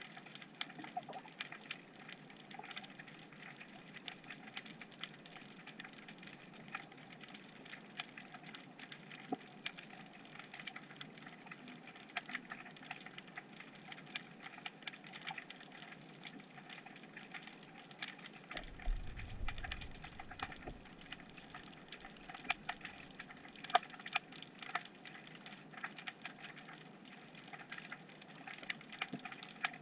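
Underwater ambience picked up by a submerged action camera: a steady crackle of many irregular, sharp little clicks. A brief low rumble comes about two-thirds of the way through.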